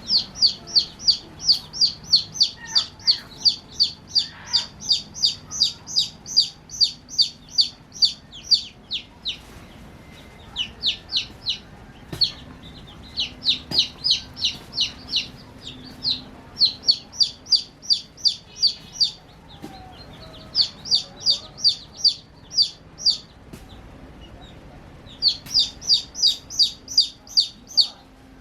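Baby chicks chirping: rapid high-pitched peeps, about three a second, in runs broken by short pauses.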